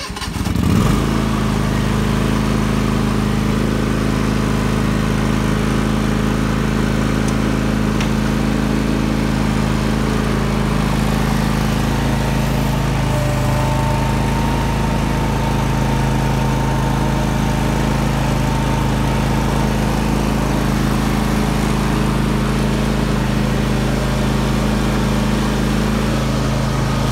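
John Deere 584 riding mower's 24 hp Kawasaki engine starting up and then running steadily at an even speed.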